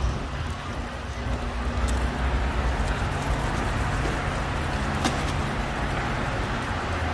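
City street traffic: cars driving past, with a steady low rumble and road noise.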